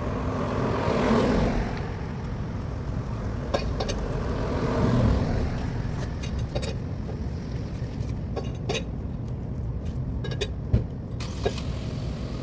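Road traffic: a steady low rumble of cars, with two louder vehicle passes about a second in and about five seconds in, and a few small clicks near the end.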